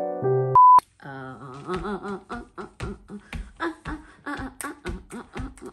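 A brief stepped chime ending in a sharp beep, then a rhythmic run of vocal sounds with clicks at about four beats a second, like beatboxing or vocal music.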